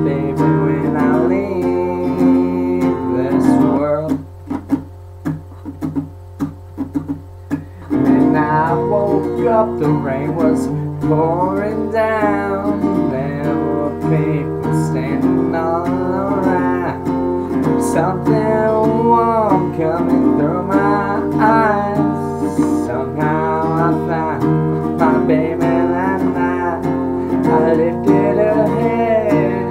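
Acoustic guitar strummed, with a man singing over it. About four seconds in the playing drops to a few quiet picked notes, and the full strumming and singing come back about eight seconds in.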